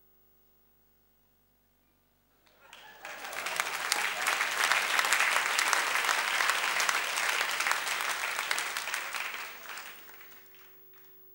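Audience applauding: clapping swells in about two and a half seconds in, holds for several seconds, and dies away near the end.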